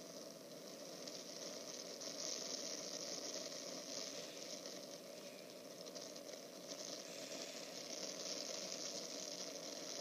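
A steady rushing hiss that swells a little about two seconds in and again near seven seconds in.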